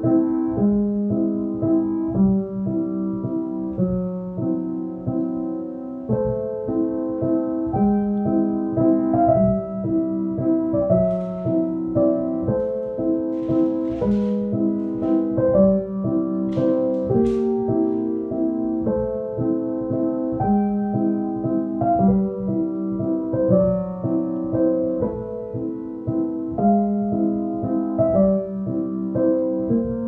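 Background piano music, a steady succession of notes and chords.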